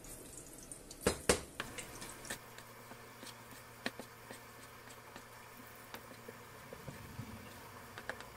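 Sliced garlic cloves frying gently in olive oil in a non-stick pan: a faint, steady sizzle with scattered small pops. A wooden spatula knocks twice against the pan about a second in.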